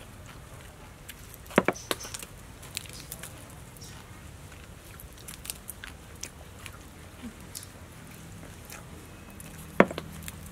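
Crisp crackling and sharp clicks from hands breaking apart deep-fried snakehead fish and folding it into lettuce leaves. The clicks come scattered, the loudest a close pair about a second and a half in and another near the end.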